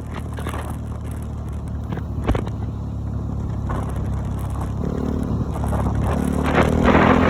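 A motor vehicle's engine running steadily, with a single knock about two seconds in. The engine and a rushing noise grow louder near the end.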